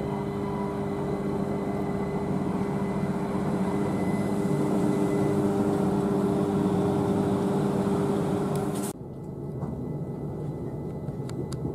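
Class 387 Electrostar electric multiple unit running into the platform: a steady electric hum of several tones over wheel-and-rail rumble, growing louder as it draws alongside. About nine seconds in the sound cuts suddenly to the quieter inside of the train, where a rising whine near the end marks the traction motors as it pulls away.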